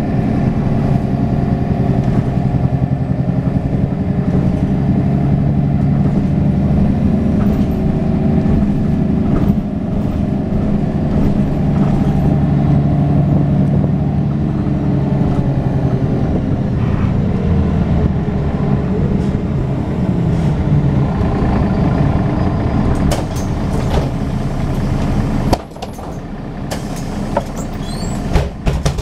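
Mercedes-Benz Citaro O530 city bus's OM906hLA six-cylinder diesel engine running under way, heard from inside the bus, with the engine note sliding lower around halfway. About 25 seconds in the engine sound drops off suddenly, followed by a few sharp clicks and hisses.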